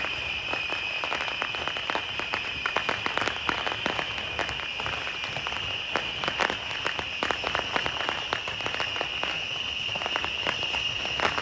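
A long string of firecrackers going off in a rapid, irregular crackle over a steady high-pitched hiss.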